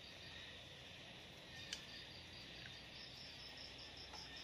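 Faint insect chirping, an even pulse of about five chirps a second over a steady high hiss, with one soft click a little under two seconds in.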